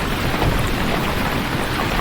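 Heavy rain falling steadily, with a deep low rumble under the downpour.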